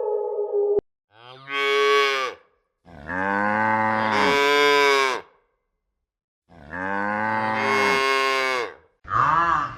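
A cow mooing three times, long deep calls with the middle one the longest. A falling electronic tone cuts off just under a second in, and another animal's call begins right at the end.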